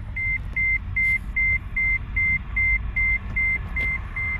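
Rapid electronic beeping at one high pitch, about two and a half short beeps a second and even in level, over the low rumble of a car driving.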